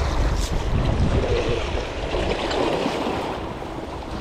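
Wind blowing on the microphone, with a steady wash of waves.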